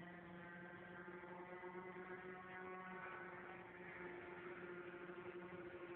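Electric motors and propellers of several radio-controlled airplanes flying overhead: a faint, steady buzzing drone of a few overlapping tones, with one lower tone dropping out about halfway.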